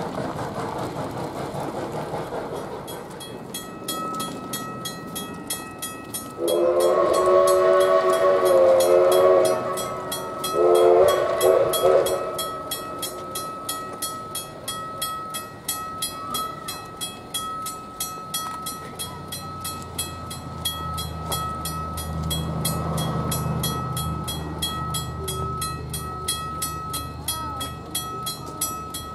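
Railroad crossing bell ringing rapidly and evenly. Over it, a narrow-gauge steam locomotive's whistle blows twice: a long blast about six seconds in and a shorter one about ten seconds in. A low rumble of the approaching locomotive builds in the last third.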